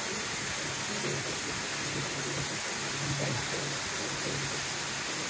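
Shuttle boat under way on a lake: a steady rush of wind and water with the low, even hum of the boat's motor beneath it.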